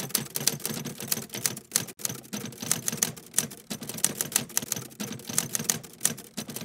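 Typewriter keys clacking in a rapid, irregular run, with a brief pause about two seconds in: a typewriter sound effect for text being typed onto the screen.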